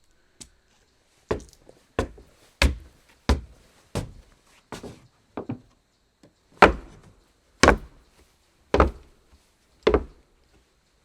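Footsteps on a wooden floor, each step a hard, knocking thud. The steps come at a brisk pace of about one and a half a second, then slow to about one a second after the midpoint.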